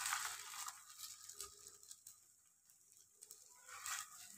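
Faint sizzle of a freshly oiled laccha paratha frying on a tawa, fading out within the first second. A brief soft scrape of a silicone spatula against the pan comes near the end.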